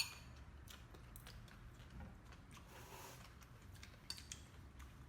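Quiet eating sounds: faint chewing of shredded green papaya salad and small clicks of utensils, with one sharper click at the start.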